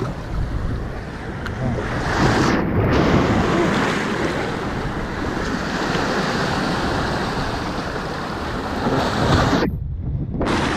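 Ocean surf washing and breaking over shoreline rocks, with wind rumbling on the microphone; the wash swells about two seconds in.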